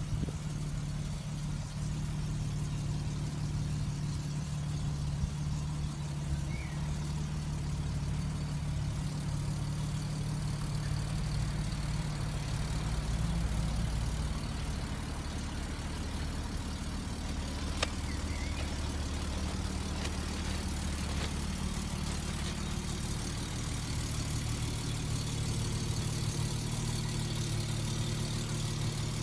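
The 1959 Mercedes-Benz 220 S Ponton coupé's 2.2-litre straight-six idling steadily, with a single sharp click a little past the middle.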